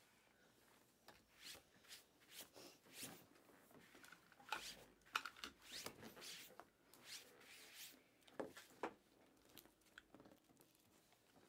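Stacks of trading cards being handled: faint, quick swishes and rustles of card stock sliding and being picked up, roughly two strokes a second and a little louder in the middle.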